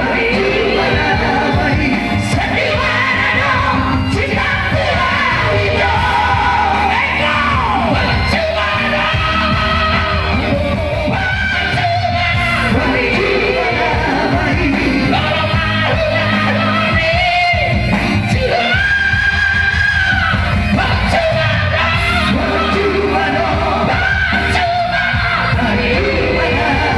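Vocal trio singing a Batak song over amplified music accompaniment, with long held notes.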